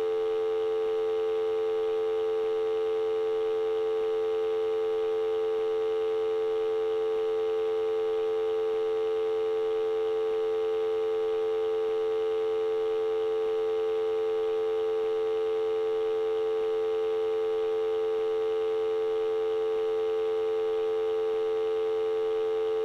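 Telephone dial tone: a steady, unbroken hum that cuts off suddenly at the end.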